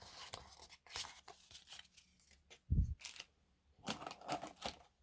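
Light rustling, tapping and crinkling of cardboard and plastic as the contents of a Pokémon trading card box are handled, with a short low thump about three seconds in.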